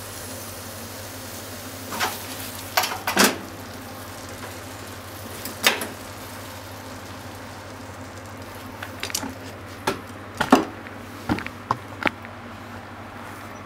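Thick fried tofu and okra in a soy sauce glaze sizzling steadily in a frying pan. Chopsticks click and knock against the pan several times as the food is stirred.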